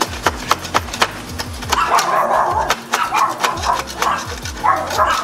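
Rapid sharp clicks and taps of leftover glass pieces being picked and scraped out of a window frame's edges. A few short, rough, louder bursts come at about two, three and five seconds in.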